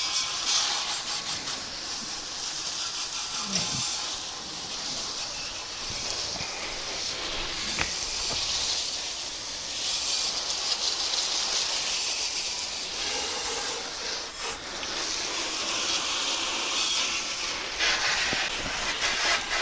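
Water from a hose spraying onto the metal grill-smoker to rinse off oven cleaner: a steady hiss that swells and dips as the spray moves.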